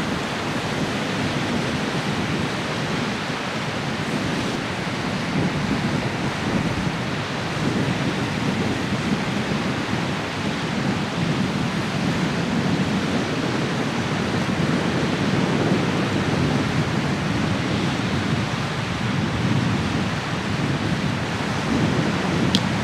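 Strong wind blowing over the microphone and choppy waves washing on the shore: a steady rushing noise with a low rumble that swells and eases.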